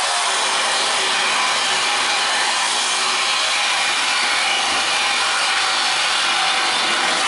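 Steady, loud hiss that does not change, with no distinct events and no voices.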